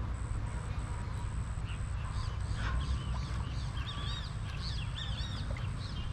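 Birds calling in a quick run of short, arching chirps that start about two seconds in and grow busier, over a steady low rumble.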